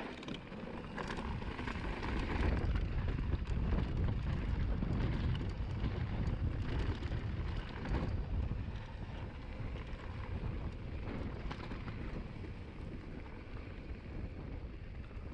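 Wind buffeting the microphone over the rumble and rattle of a mountain bike riding fast down a rough dirt and rock trail, with a few sharp knocks from the bike over bumps.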